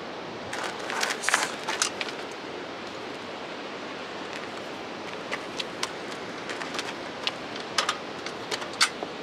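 Metal rattles and sharp clicks from a folding e-bike being lifted out and unfolded: a clatter of frame and chain about a second in, then a series of separate clicks and knocks from about five seconds on, over a steady background hiss.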